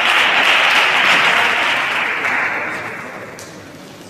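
Spectators applauding after a point in a table tennis match, the clapping dying away over about three seconds.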